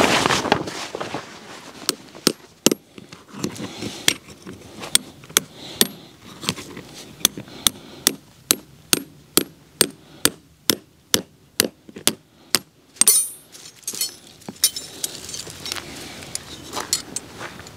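Repeated hammer blows, a steady run of sharp strikes about two to three a second, followed by a brief clinking clatter and a few scattered knocks near the end.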